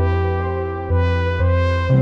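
Slow meditation background music of held, sustained tones, with new notes entering about a second in and again near the end.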